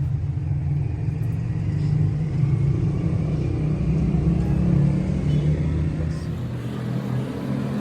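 Engine running steadily, a low rumble that holds an even speed throughout.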